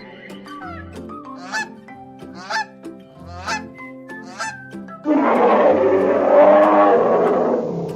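Goose honking: a run of about five short honks, roughly one a second, over light background music. About five seconds in, they give way to a louder, longer sound of a different kind.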